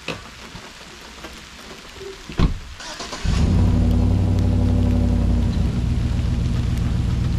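A small engine starts about three seconds in, just after a thump and a brief hiss, and settles straight into a loud, steady idle.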